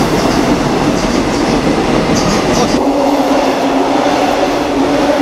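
A subway train passing close by on a railway bridge: loud, steady rumble of wheels on the rails. About three seconds in, the deep rumble eases and a steady hum takes over.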